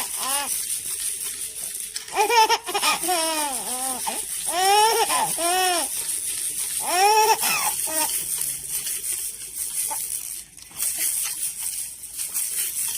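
A young baby, about four months old, squealing and cooing excitedly in short bursts, each call rising and falling in pitch, several bunches of calls with brief pauses between.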